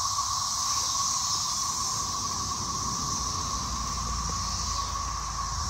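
Chorus of cicadas: a steady, unbroken drone with one ringing pitch and a higher hiss above it.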